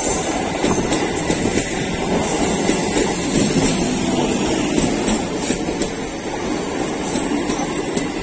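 Electric multiple-unit (EMU) local train passing close by at speed: a loud, steady rumble of the coaches with the wheels clattering over the rail joints.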